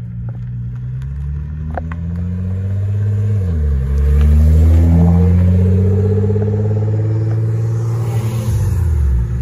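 Nissan GT-R R35's twin-turbo V6 accelerating past, its engine note climbing, dropping at an upshift about three and a half seconds in, then climbing again as it pulls away, with another drop near the end. It is loudest as it passes, a few seconds in.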